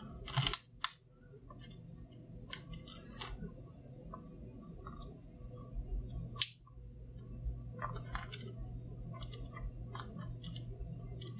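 Blue plastic pry tool clicking and scraping against the power bank's loose LED display module, circuit board and plastic case: scattered small clicks, with one sharper click about six and a half seconds in.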